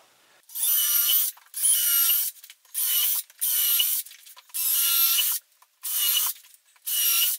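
Cordless drill motor whining in short bursts, about seven of them, each half a second to a second long, as it drills holes through soft pallet-wood floor planks.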